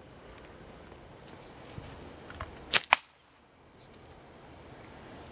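A homemade slingshot with rubber bands being shot: two sharp snaps about a fifth of a second apart near the middle, with faint outdoor background.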